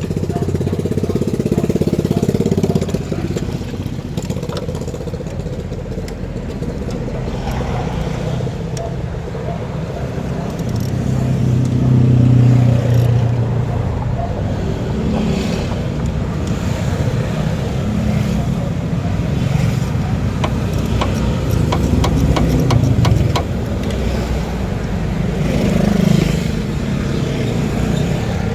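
Motor vehicle engines running, swelling and fading and shifting in pitch, with a run of rapid sharp clicks in the middle.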